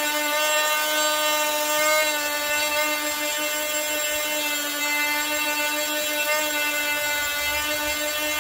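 Wesco oscillating multi-tool running steadily against a hand-held wooden bird carving, shaping the wood with a high, even whine. Its pitch wavers slightly now and then as it bears on the wood.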